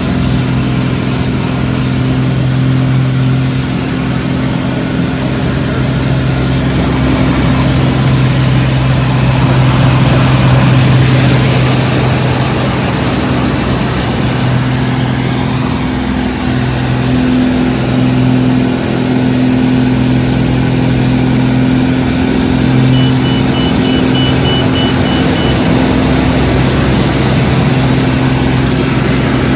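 Pitts aerobatic biplane's piston engine and propeller droning steadily as heard inside the canopied cockpit, with a rush of airflow noise over it. The drone dips briefly in pitch and loudness about halfway through.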